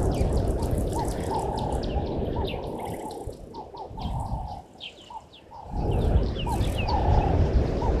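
Birds chirping and calling, with many short falling chirps and some lower curved calls, over a steady low rumble that drops away briefly about five seconds in.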